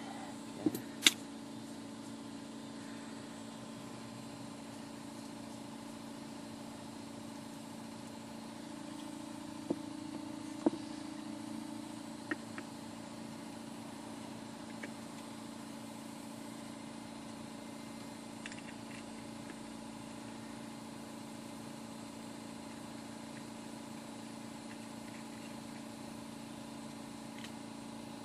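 A steady mechanical hum with a few sharp clicks and taps. The loudest clicks come about a second in and around ten to eleven seconds.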